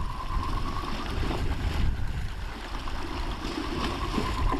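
Sea waves washing against the sea wall, with wind on the microphone, while a fixed-spool fishing reel is wound in to retrieve a hooked fish. A faint steady whine sounds at the start and again near the end.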